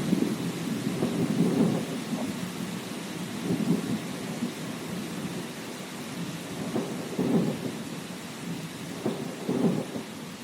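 Thunderstorm: steady rain hissing, with low thunder rolling in repeated swells about four times.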